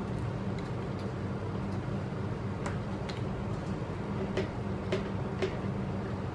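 A handful of light clicks from a small screwdriver and screws handled against a spinning reel's body during reassembly, three of them about half a second apart in the second half, over a steady low hum.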